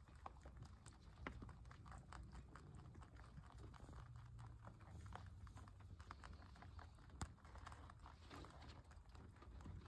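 Near silence: faint outdoor ambience with a low rumble and scattered light clicks, one sharper click about seven seconds in.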